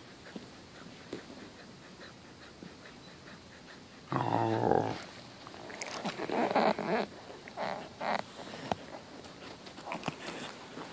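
Samoyed giving one short, low pitched vocal sound about four seconds in, then a few noisy bursts of close-up sniffing and fur brushing the microphone. This is how the dog asks to go outside.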